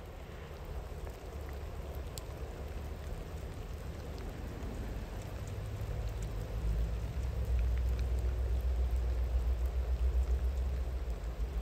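Steady rain falling, with scattered single drop ticks, over a low rumble from a distant train that swells louder from about halfway through.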